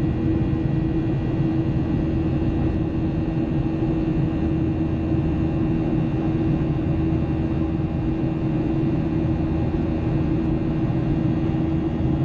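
Boeing 737-800 jet engines and airflow, heard on board as a steady drone with a constant hum running through it.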